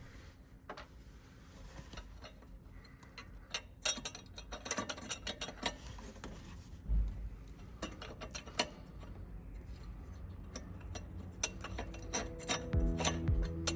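Irregular metal clicks and clinks of hand tools and parts as an air-conditioning compressor is taken apart, sparse at first and busier after a few seconds.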